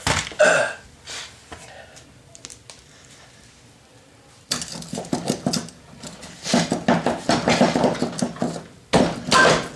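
Metal clinking and clattering of tools and parts during work on a wheel, with a few sharp clicks early on and a denser stretch of rattling about halfway through.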